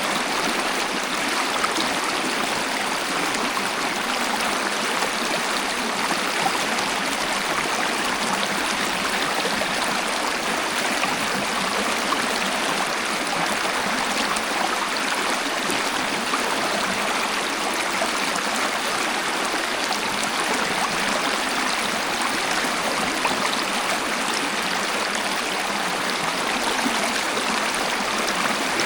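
Waterfall: a steady, even rush of falling and flowing water with no breaks, bright and hissy with almost no deep rumble.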